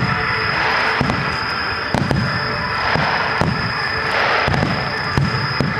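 Starmine fireworks barrage: aerial shells bursting in quick succession, low booms about twice a second over continuous crackling.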